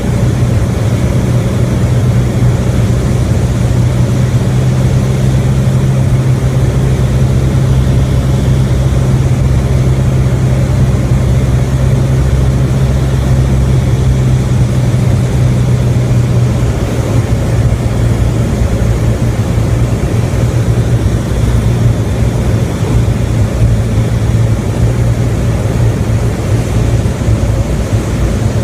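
Beechcraft Musketeer's four-cylinder piston engine and propeller droning steadily on the landing approach, heard inside the cabin. The engine note changes slightly a little past halfway.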